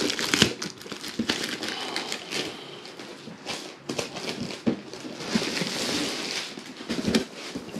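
Clear plastic bag crinkling and rustling as a boxed collectible figure is handled and slid out of it, with a few light knocks of the box along the way; the crinkling is heaviest a little past the middle.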